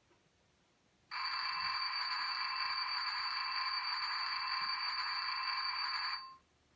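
A model locomotive's sound decoder playing one steady sound through its small round speaker, starting abruptly and cutting off about five seconds later. Its pitch is thin and high, with steady tones over a hiss and no deep engine rumble.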